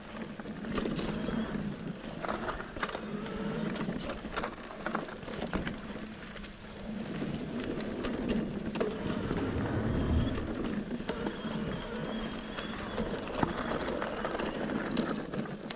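Marin Alpine Trail E1 electric mountain bike ridden along a dirt trail: continuous tyre and trail noise with frequent clicks and rattles from the bike.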